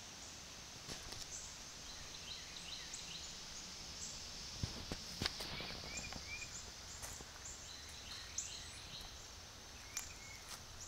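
Faint outdoor ambience: birds chirping over a steady high-pitched insect drone, with a few sharp clicks.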